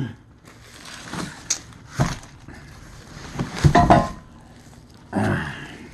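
Heavy metal parts of a manual portable tire changer being handled and set down: separate knocks and clanks, the loudest a cluster with some ringing a little before the four-second mark, then a short rustle a little after five seconds.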